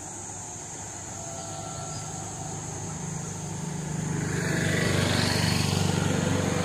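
An engine running, growing louder about four seconds in, over a steady high hiss.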